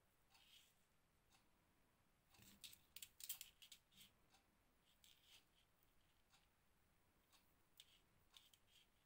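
Faint small clicks and rustles of crochet handwork with thread and seed beads, scattered through, with a busier run of clicks about two and a half to three and a half seconds in.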